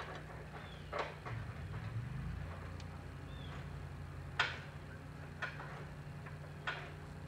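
Scattered sharp clicks and knocks of hand tools on a car's stripped front-end parts, a second or more apart, the loudest about four and a half seconds in, over a steady low hum.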